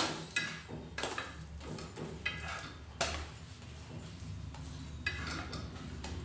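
Metal spatula scraping and tapping a ghee-fried flatbread on a hot flat griddle (tawa): a series of short scrapes and knocks, several in the first three seconds and a cluster again about five seconds in, over a faint sizzle.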